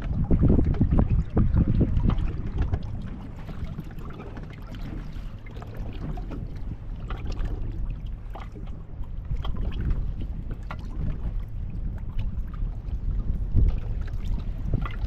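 A boat running on open water: a low, uneven rumble from the motor and the hull on the water, with wind buffeting the microphone.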